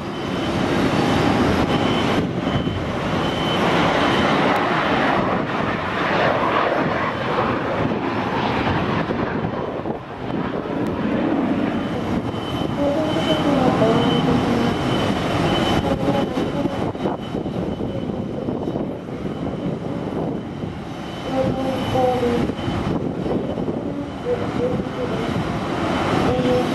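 Turbine engines and rotors of a CH-47J Chinook tandem-rotor helicopter running steadily, a dense loud noise with a thin high whine.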